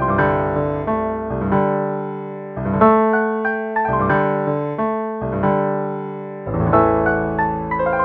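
Solo piano playing slow sustained chords, with notes left ringing and deep bass notes coming and going; a fresh chord is struck about seven seconds in.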